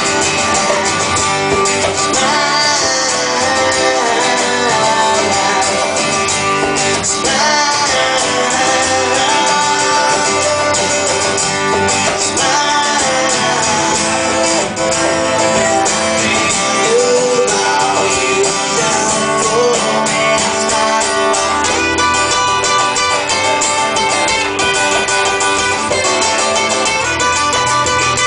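Live country-style band playing an instrumental break, with guitar prominent.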